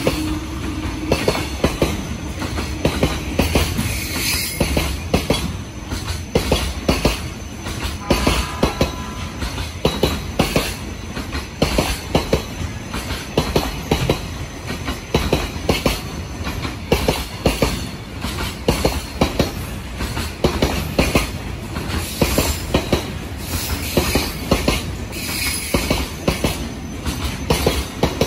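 An EH500 electric locomotive and its train of container wagons passing close by: a fast, irregular stream of wheel clicks over the rail joints, with now and then a high squeal from the wheels.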